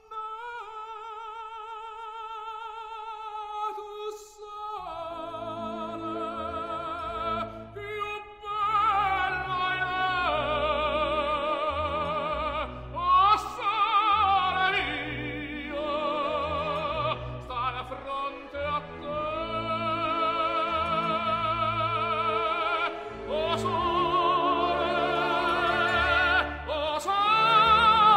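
Operatic singing with a wide vibrato. The voice holds long notes alone at first, and instrumental accompaniment with a bass line comes in about five seconds in.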